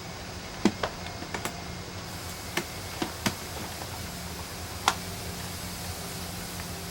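Irregular light clicks and knocks, about eight over several seconds, over a steady low hum.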